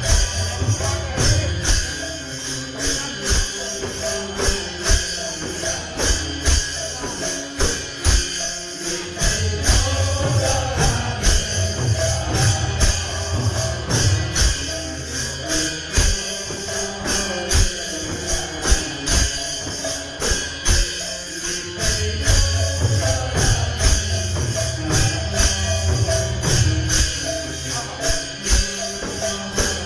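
Kirtan group music: a steady fast rhythm of jingling metal strokes, about three a second, over a low drum that drops in and out.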